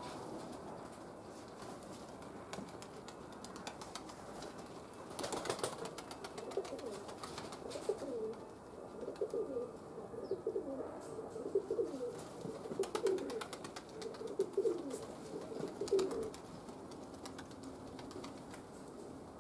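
Domestic pigeons cooing: a run of repeated low, gliding coos from about six seconds in until near the end, after a short rustle.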